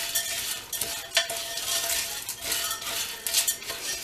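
A spoon stirring uncooked pinto beans, not yet covered with water, in a slow-cooker pot. The beans and spoon make a continuous gritty rattle of small clicks, with one sharper knock of the spoon against the pot about a second in.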